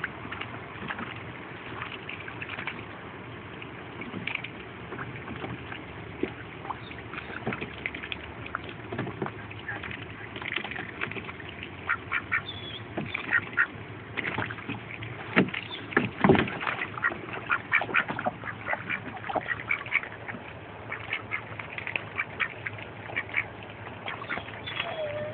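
Pekin ducks feeding in a shallow plastic wading pool: a busy run of short clicks and splashes from their bills dabbling in the water, with quacks. The dabbling gets busier about halfway through.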